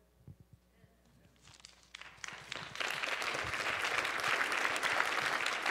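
A congregation applauding: a few scattered claps at first, swelling into full applause from about two seconds in.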